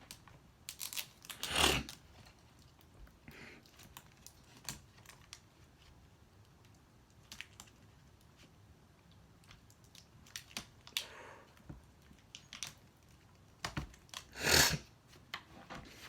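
Hands working a laptop's display cable connector and LCD panel: tape peeling, with scattered light clicks and short rustling scrapes, the loudest about a second and a half in and again near the end.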